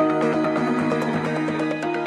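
Background music: sustained held notes over a light, steady ticking beat, with a louder new chord and bass coming in at the start.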